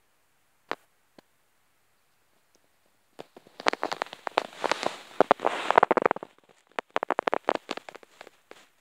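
Close crackling rustle made up of many rapid clicks, starting about three seconds in, thickest for a few seconds, then breaking into separate clicks; a single click sounds just under a second in.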